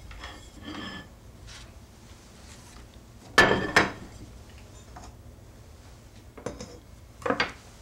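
Kitchenware being handled on a countertop: scattered clinks and knocks, the loudest a quick double knock about three and a half seconds in, with another pair near the end.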